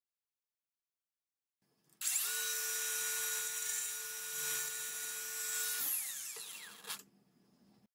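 Cordless angle grinder starting about two seconds in and cutting a thin metal rod with a steady whine and a hissing grind. A little before six seconds the whine drops and the disc winds down in falling pitch, then the sound stops suddenly about a second later.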